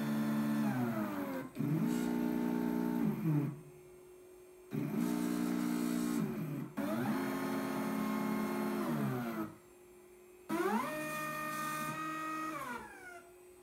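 Geared stepper motors of a 3D-printed six-axis robot arm whining through a series of moves. Each whine rises in pitch as the motors speed up, holds steady, then falls as they slow to a stop. There are about five moves with short pauses between them, the longest pauses about four and ten seconds in.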